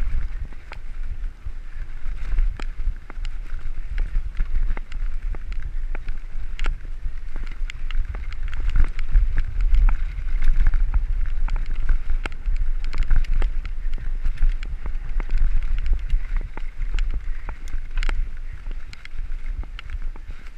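Mountain bike ridden fast over a rough dirt trail, with heavy wind rumble on the microphone, tyre hiss and frequent sharp rattles and clicks as the bike bounces over bumps.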